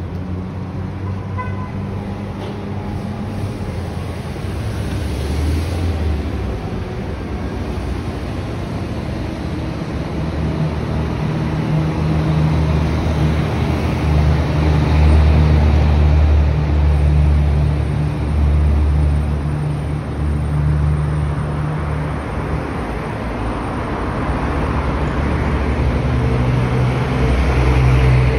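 City street traffic: motor vehicles passing with a continuous low engine rumble and tyre noise. The rumble swells louder around the middle and again near the end as heavier vehicles go by.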